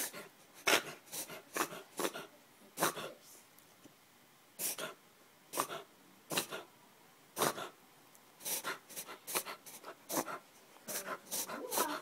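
Four-month-old basset hound puppy reverse sneezing: a long run of short, sharp, noisy inhalations through the nose, roughly one every half second to a second, with a brief pause about four seconds in.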